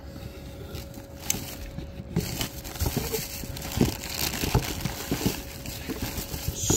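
Hands rummaging in a cardboard parts box and its plastic wrapping: irregular crinkling and rustling with small knocks, over a faint steady hum.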